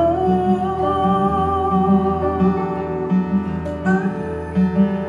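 Folk song played live on acoustic guitar and fretless bass, with a woman singing a long held note over a steady pulsing bass line.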